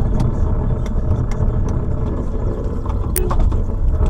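A car's engine and road noise heard inside the cabin through the dashcam microphone: a steady low rumble, with a few faint clicks and a brief sharp tick about three seconds in.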